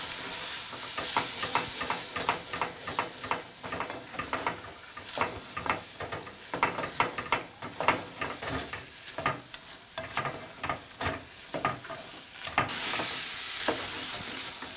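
A wooden spoon scrapes and knocks against a metal pot in quick, irregular strokes, stirring liver, tomatoes and tomato paste. Under it runs a steady sizzle of frying, which grows louder near the end as the stirring lets up.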